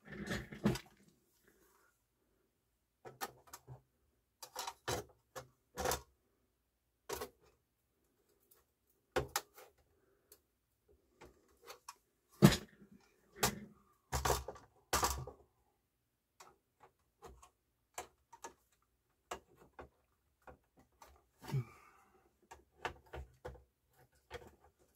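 Irregular clicks, taps and knocks of a sheet-metal disc-clamp bracket being handled and seated back onto a CD changer's chassis over the disc carousel, with the loudest knock about halfway through.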